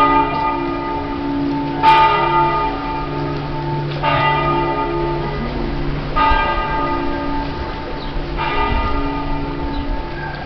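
Church bells ringing: one bell struck four times, about two seconds apart, each stroke ringing on until the next, over the steady hum of deeper bells.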